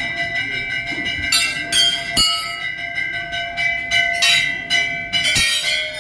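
Hanging metal temple bells struck by hand, several times in a row. Each strike sets off a clear, ringing bell tone that carries on between the strokes.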